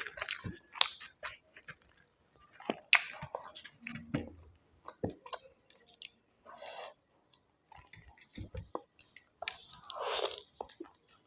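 Close-up chewing of food: irregular wet mouth smacks, clicks and occasional crunches as someone eats.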